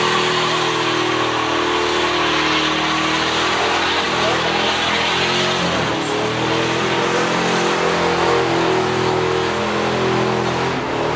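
A car engine held at high revs during a burnout, its pitch wavering slightly, with the rear tyres spinning and squealing on the asphalt in a continuous hiss.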